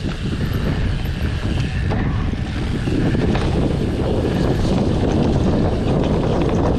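Wind rushing over the microphone of a camera on a moving mountain bike: a loud, steady low rumble with rattly noise mixed in.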